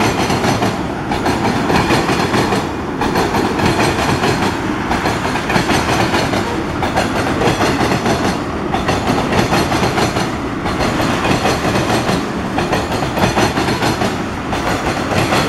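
Freight train tank cars rolling past at close range: a steady rumble and clatter of steel wheels on the rails. The sound dips briefly about every two seconds as each car goes by.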